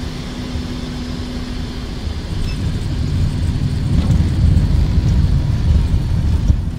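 A single-engine propeller plane's engine and propeller running, heard from inside the cockpit while the plane rolls along the runway. A steady engine note fades about two seconds in, and a low rumble grows louder in the second half.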